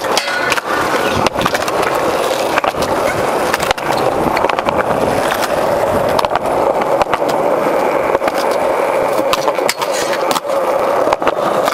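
Skateboard wheels rolling over concrete, a steady rumble broken by many sharp clacks and knocks of the board, its trucks and tail hitting the ground, the rail and the ledge.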